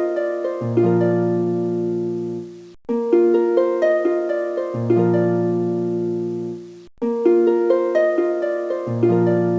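Background music: a short plucked-string phrase of held notes over a low bass note, repeating as a loop and breaking off briefly twice.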